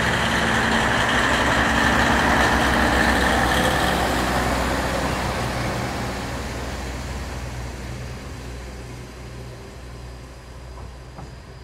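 KiHa 40 diesel railcar pulling away: its diesel engine running under a steady rumble of wheels on rail. It is loudest in the first few seconds and then fades evenly as the railcar draws off.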